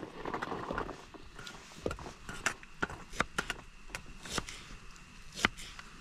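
Knife cutting an onion on a wooden chopping board: a string of irregular sharp knocks as the blade strikes the board.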